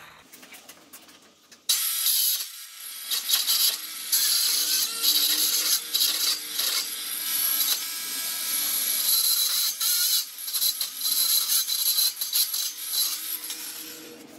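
Compact circular saw, set to a shallow depth, cutting across a capped composite decking board. It starts abruptly about a second and a half in and runs continuously, with the motor's whine under the noise of the blade chewing through the board.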